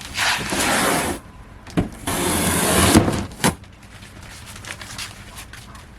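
A new poultry crate being unpacked from its box: two long scraping, rustling sounds of about a second each, with a few sharp knocks, then quieter handling.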